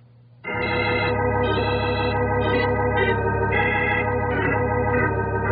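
Organ music bridge marking a scene change in a radio drama. It enters about half a second in with sustained chords over a steady low note, and the upper notes shift every half second or so.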